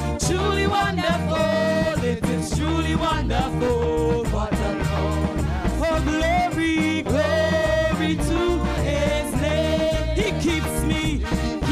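Upbeat gospel praise song: a band keeps a steady, bouncy beat with drums and bass under a sung melody.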